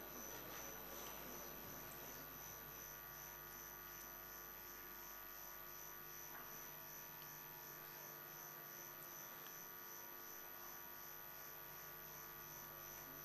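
Faint steady electrical mains hum with low background hiss, near silence otherwise.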